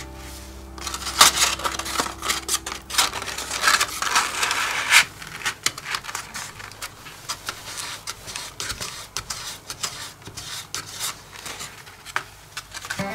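Stiff white paper handled close by while a heart-shaped panel is pressed onto a frame's folded tabs: rustling and crackling with many quick ticks and taps. The sound is busiest and loudest in the first few seconds, then sparser.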